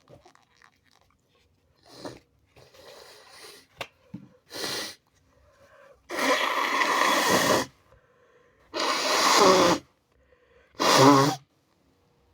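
A person's induced sneezes that he is trying to hold back: a few short breaths and sniffs building up, then three loud, wet sneeze bursts about two seconds apart, the last ending in a voiced cry.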